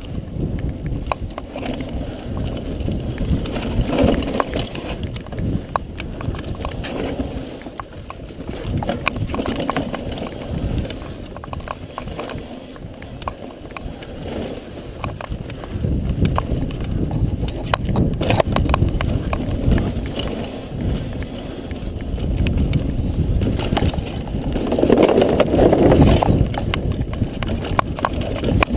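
Lapierre Froggy 518 mountain bike rolling fast down a dirt trail: a continuous rumble of tyres on dirt and gravel, with frequent rattles and knocks from the bike over the bumps. It is loudest a few seconds before the end.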